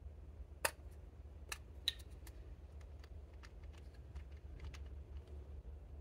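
Small sharp plastic clicks as the clear caps come off two lipstick tubes and the tubes are handled. The loudest click is about half a second in, followed by a few more and then a scatter of fainter ticks, over a faint low hum.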